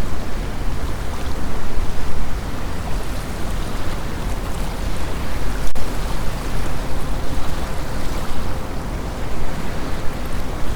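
Wind gusting over the microphone with a deep rumble, and small lake waves lapping against the shore, rising and easing unevenly. One sharp click about halfway through.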